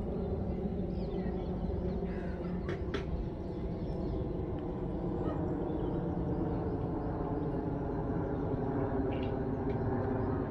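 Outdoor park ambience: a steady low rumble with a few faint bird calls over it, and two light clicks about three seconds in.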